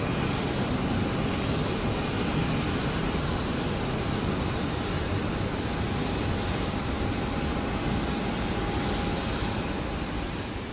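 Four Rolls-Royce Trent 900 turbofans of a Lufthansa Airbus A380-800 at climb power as the airliner climbs away: a steady jet roar with a faint steady whine, easing slightly near the end.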